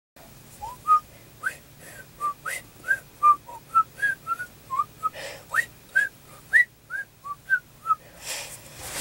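A person whistling a string of short notes, two or three a second, many sliding up in pitch, with breathy puffs between them. It ends with a longer breathy rush.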